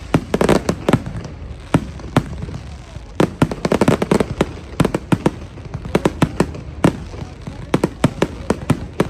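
Fireworks going off: a fast, irregular string of bangs and crackles, thickening into dense crackling clusters about half a second in and again around three to four seconds in.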